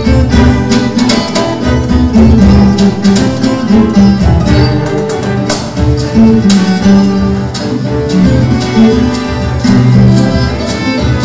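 Cello ensemble bowing sustained low notes and melody while a viola caipira (Brazilian ten-string folk guitar) is plucked and strummed in a quick, steady rhythm on top.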